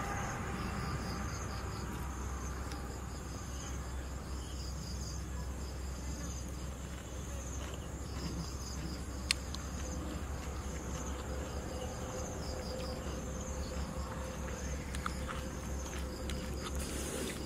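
Insects chirping in steady, high-pitched pulsing trills over a low, steady rumble, with one sharp click about nine seconds in.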